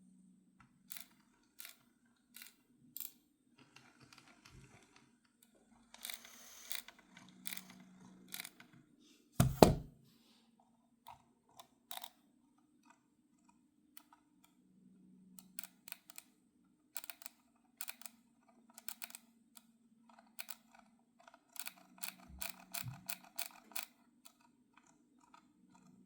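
Scroll wheel of a brand-new Genesis Zircon P660 Pro mouse being turned, giving sharp ticks, some single and some in quick runs, with a rattling, scraping stretch partway through; the title calls it an annoying scroll sound, a fault in a new mouse. One much louder knock about nine and a half seconds in.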